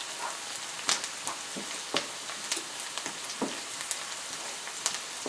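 Chopped onion and garlic sizzling as they fry in butter and olive oil in a frying pan: a steady hiss broken by sharp ticks about once a second.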